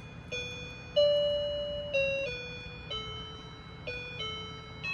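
Electronic tones from a baby's light-up piano play gym, playing a simple melody of about eight single beeping notes, each starting suddenly and fading before the next.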